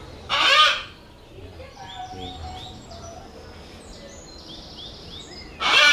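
Female eclectus parrot giving two loud, harsh squawks, one near the start and one near the end, with smaller birds chirping softly in between.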